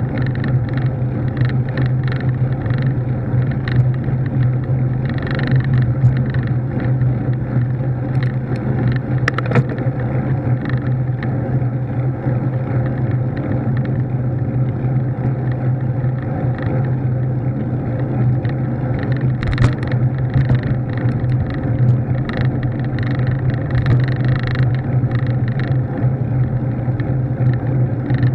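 Steady road and wind noise from a vehicle travelling at an even speed on paved highway, with a constant low drone and a few light rattles and knocks.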